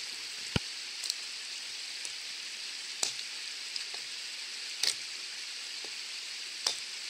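Wetterlings Bushman axe striking thin branches: about five sharp knocks, the first the loudest, spaced a second or two apart. Under them runs the steady rush of a stream.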